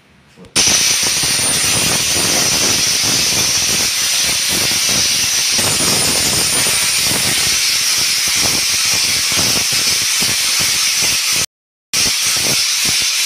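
Handheld angle grinder with an abrasive disc grinding a stone door frame, smoothing an Araldite-glued repair joint flush. A loud, steady hissing grind starts about half a second in and cuts out briefly near the end.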